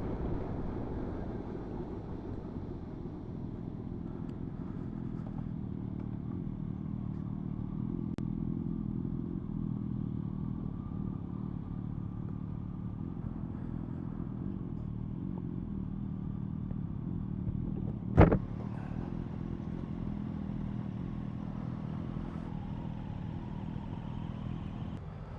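Motorcycle engine running steadily at low revs, with one sharp knock about eighteen seconds in.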